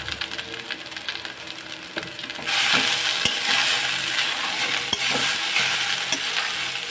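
Leftover rice frying and sizzling in a metal kadhai as it is stirred, with scattered clicks and scrapes of the spatula on the pan. The sizzle gets much louder about two and a half seconds in.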